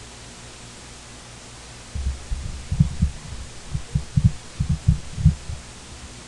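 Irregular low, dull thumps and bumps on the lectern microphone, about a dozen starting about two seconds in and stopping after three and a half seconds, over a steady low electrical hum and hiss.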